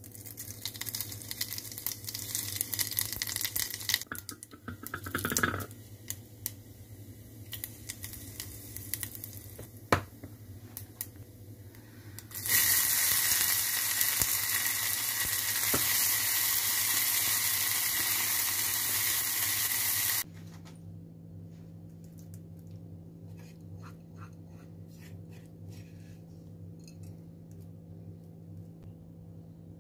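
Spice seeds sizzling and crackling in hot oil in a small pan, with a few sharp pops. About twelve seconds in, chopped red onion hits the oil and fries with a loud, even sizzle that cuts off suddenly about eight seconds later. After that come only faint clicks of a spoon stirring onion into yoghurt, over a low steady hum.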